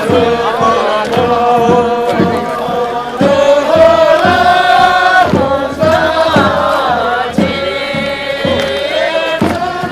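A group of voices singing a Tibetan folk dance song together: long held notes in a chant-like melody.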